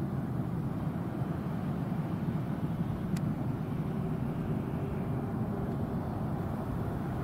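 Boeing 777-300 airliner's jet engines giving a steady, low rumble as the aircraft rolls out along the runway after touchdown.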